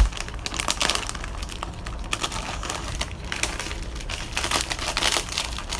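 Plastic packaging of a bag of Fujiya Pop Candy lollipops crinkling and crackling as it is handled and opened, with a bump at the very start.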